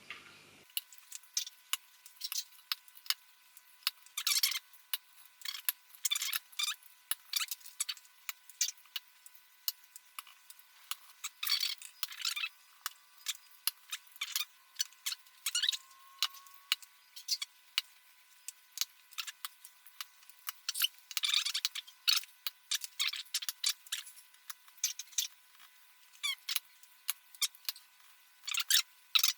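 Holy Panda mechanical keyboard switches being pressed into the hot-swap sockets of a GMMK TKL board: an uneven string of small plastic clicks and snaps, with a few longer squeaky scrapes.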